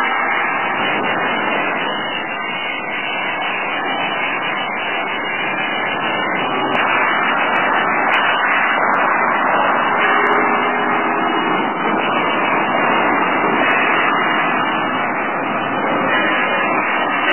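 Mobile belt conveyor running: its electric motor, gear reducer and chain drive turning the belt over the idlers, a steady whirring mechanical noise.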